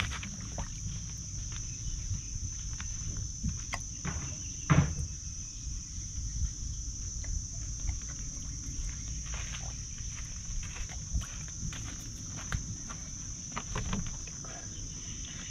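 Steady, high-pitched insect chirring, with a low rumble underneath and scattered light clicks and taps, the sharpest about five seconds in.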